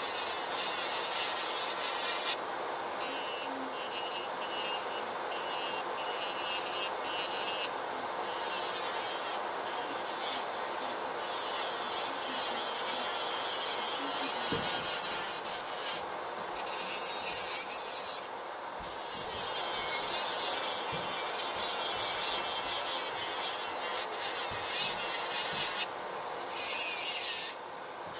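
Electric nail drill grinding an artificial nail, a high scraping hiss that comes and goes, over the steady whir of a nail dust collector's fan. The grinding is loudest in two short surges, about two-thirds in and again near the end.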